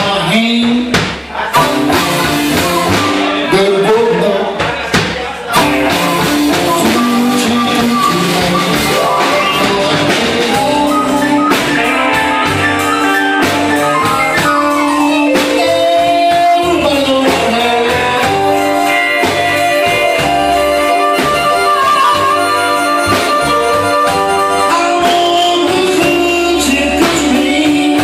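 Live electric blues band playing an instrumental break: an amplified harmonica solos with held and bending notes over electric guitar, upright bass and drums.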